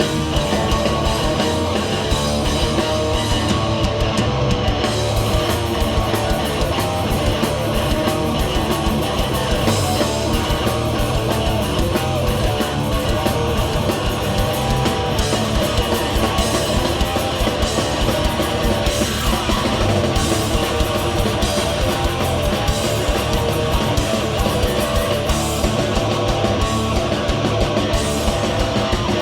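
Hardcore punk band playing live at full volume: distorted electric guitars, bass and fast drums in a dense, steady wall of sound.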